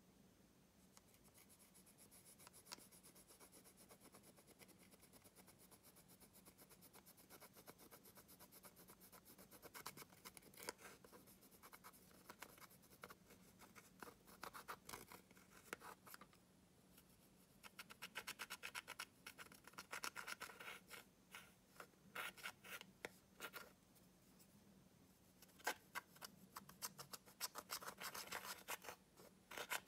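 Plastic pen tip scratching and crumbling pressed eyeshadow powder in a palette pan: quiet dry scraping and gritty crackling, faint at first, then coming in clusters of quick scrapes from about a third of the way in.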